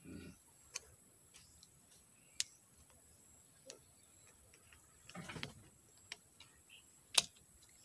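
Small flat screwdriver prying at the plastic lock cap on a PVC ball valve's stem, making a few scattered sharp clicks of metal on plastic. The loudest click comes near the end.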